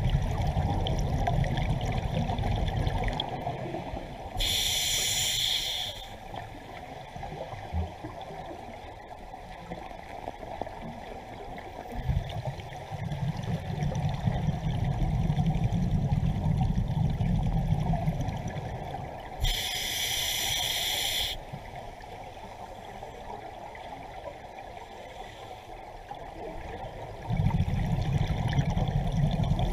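Scuba diver breathing through a regulator underwater: long stretches of bubbling as exhaled air escapes, alternating with two short hissing inhalations through the regulator, about four and a half and nineteen and a half seconds in.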